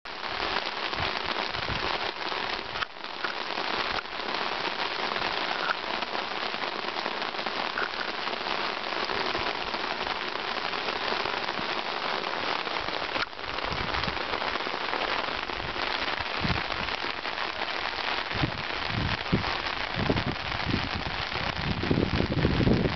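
Steady rain falling on a rocky basalt desert pavement and its pools of standing water, an even hiss of drops. Irregular low rumbles come and go in the second half, strongest near the end.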